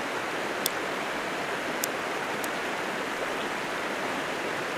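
A disposable lighter's flint wheel is struck three times, giving small sharp clicks, and it fails to light: the lighter is a dud. Under it runs a steady rushing background noise.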